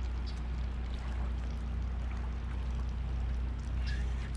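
Steady outdoor noise of moving water, with a constant low wind rumble on the microphone.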